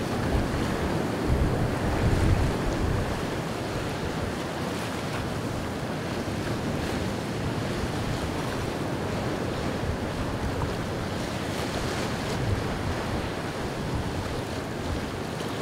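Rough surf breaking and churning around a sailing yacht, with wind buffeting the microphone, gustier in the first few seconds and then steady.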